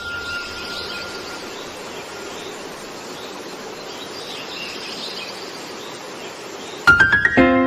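A steady hiss with faint high chirps, then a music track starts with quickly rising notes near the end.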